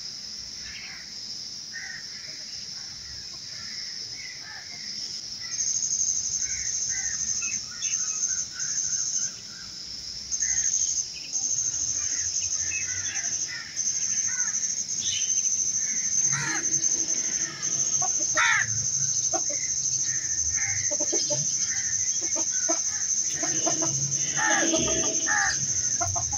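Background bird calls and clucking, busier in the second half, over a steady high-pitched drone that comes in about five seconds in and cuts out and back in several times.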